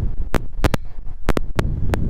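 Wind buffeting the microphone as a steady low rumble, cut by about nine sharp, irregular clicks, some of them in quick pairs.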